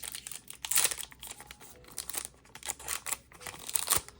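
Foil wrapper of a Pokémon TCG booster pack crinkling and tearing as it is opened by hand, in irregular crackles that are loudest about a second in and near the end.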